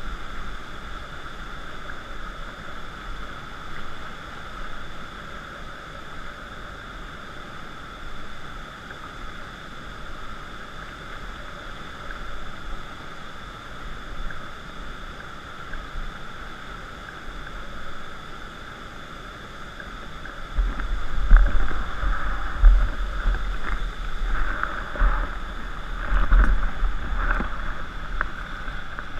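Steady rush of river rapids, muffled as if through a waterproof camera housing. About 20 seconds in, it gets louder, with irregular low knocks and buffeting as the inflatable raft moves into the current toward a waterfall.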